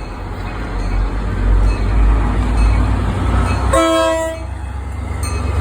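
NJ Transit diesel train running close by with a loud, heavy low rumble that builds. About four seconds in, a short horn blast of under a second.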